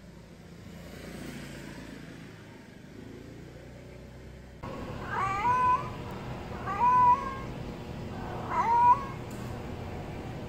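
Adult stray cat meowing three times, starting about halfway through, the calls about a second and a half apart: a mother cat calling for her kittens.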